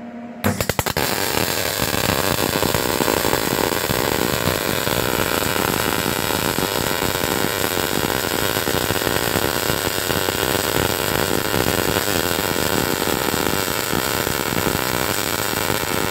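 MIG welding arc in short-circuit (dip) transfer, fed by a transformer-rectifier machine at about 19.8 volts and 133 amps, laying a bead on a plate. The arc strikes about half a second in with a few stuttering pops, then settles into a steady crackling.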